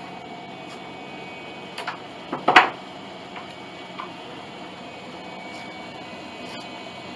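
Steady hum of shop background noise, broken about two and a half seconds in by a quick cluster of sharp knocks, with a few fainter clicks around it.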